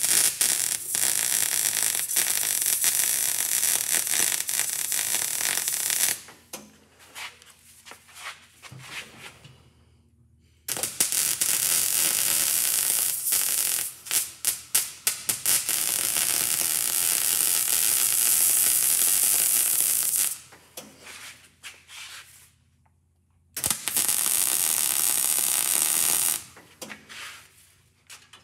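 Electric arc welder laying beads around a steel eye bolt, a continuous crackling hiss in three runs of about six, ten and three seconds, with short pauses between them.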